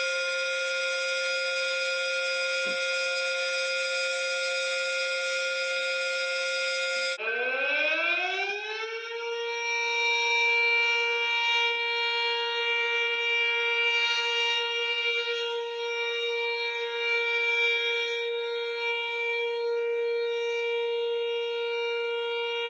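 Siren holding a steady tone, which cuts off about seven seconds in. A siren tone then rises in pitch over about two seconds and holds steady.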